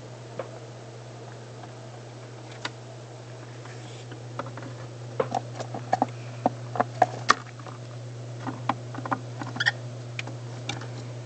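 Pet bird making a string of quick clicks and taps, thickest in the middle, with a couple of short chirps near the end, over a steady low electrical hum.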